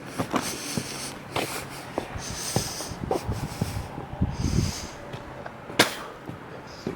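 Footsteps crunching through snow, with breaths close to the microphone about every two seconds and a sharper crunch near the end.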